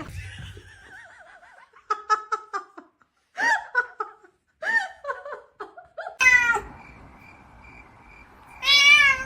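A cat meowing repeatedly in separate calls, some rising or arching in pitch, the loudest near the end.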